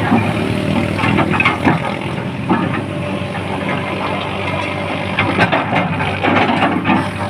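Heavy engine running steadily at idle, with scattered knocks and clatter from work around it.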